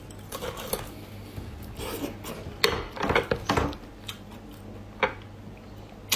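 Close-up mouth sounds of eating raw langoustine: irregular wet smacking, slurping and chewing, with a few sharp clicks, busiest near the middle.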